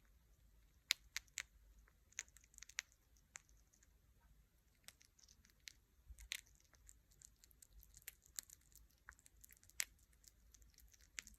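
Sugar glider chewing and biting into its food: faint, irregular small crunches and clicks, coming in short clusters with brief pauses.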